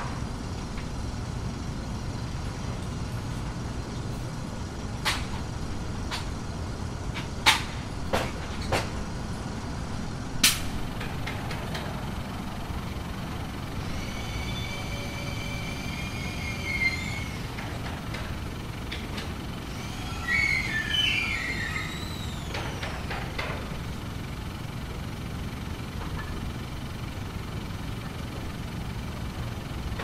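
Light construction machinery running on a building site: a steady low engine rumble with six sharp knocks in the first ten seconds or so, then two stretches of high-pitched squealing whine, one about halfway through and another a few seconds later.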